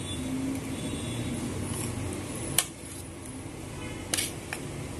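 Thick sweet paniyaram batter being transferred from a mixer jar into a glass bowl. There is one sharp clink against the bowl about two and a half seconds in and two softer clinks around four seconds.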